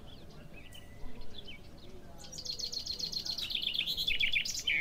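Small birds chirping, with scattered single chirps at first and a fast series of repeated high notes in the second half.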